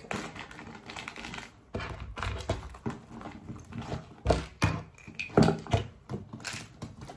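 Small belongings dropped and pushed into a Louis Vuitton Montsouris backpack one after another: irregular knocks and clicks of objects landing, with rustling of packaging and the bag's lining.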